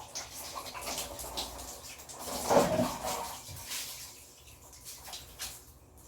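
Laundry being washed by hand in water: irregular sloshing and rubbing of wet clothes, loudest about two and a half seconds in.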